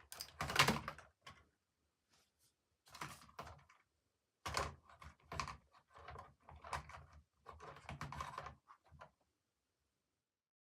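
Small plastic toys and their packaging being handled: irregular clusters of clicks and rattles separated by short quiet gaps, ending near the end.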